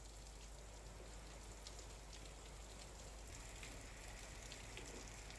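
Heavy rain falling steadily, heard faintly as an even hiss with scattered light ticks of drops.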